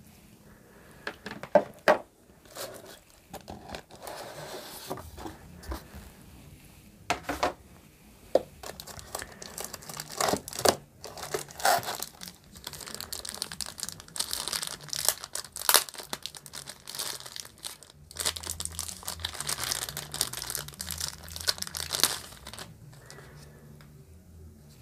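Thin plastic bags crinkling and rustling as router antennas are handled and pulled from their wrapping, the crinkling densest in the second half with a short break near the middle. A couple of sharp knocks from the packaging being handled come about two seconds in.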